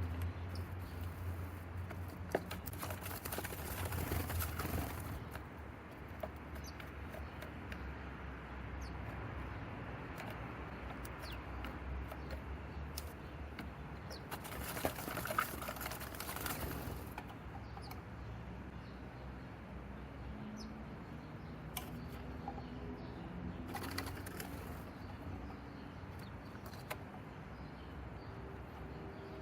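Small birds' wings fluttering and rustling in three bursts of a second or two each, over a faint steady background, with scattered faint clicks.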